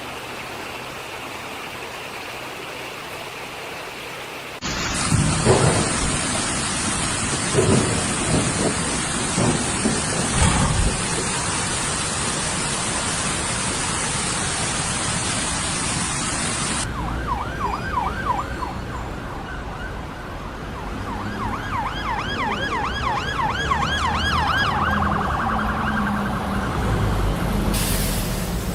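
A steady rushing noise of heavy rain and floodwater, much louder from about five seconds in. From about halfway through, an emergency vehicle siren joins it, its pitch wavering up and down several times a second.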